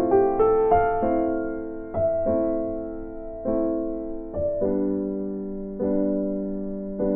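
Background piano music: soft notes and chords struck every second or so, each fading away.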